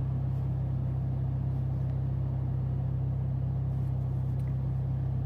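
Vehicle engine idling: a steady low hum that holds one pitch throughout, with no revving.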